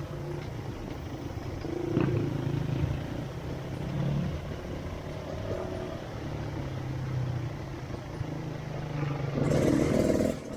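Off-road motorcycle engine running at low revs, rising and falling a little, with a louder rush of engine and noise near the end.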